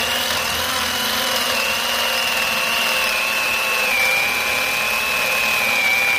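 Power drill driving a long speed (spade) bit, boring a hole up into the end grain of a dry Arbutus log. Steady motor whine that dips slightly in pitch about two-thirds through.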